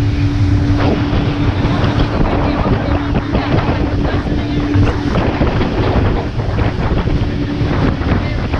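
Open tour boat's outboard engine running at speed with a steady hum, mixed with heavy wind buffeting the microphone and water rushing past the hull.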